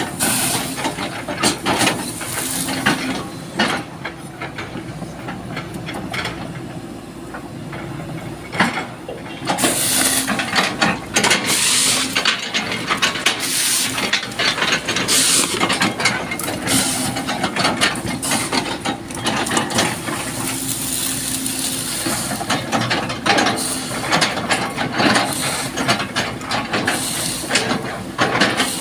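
SANY 215C hydraulic excavator running while its bucket chops felled oil palm trunks: dense cracking and crunching of the fibrous wood over a steady engine hum, with hissing bursts now and then.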